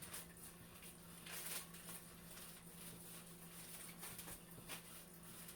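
Faint, irregular rustling of plastic drop-cloth sheeting being handled and folded, over a steady low hum.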